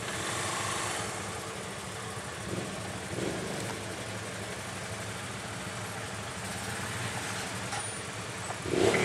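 Kawasaki KVF 750 ATV's V-twin engine running steadily at low revs at the top of the descent. A short louder sound cuts in near the end.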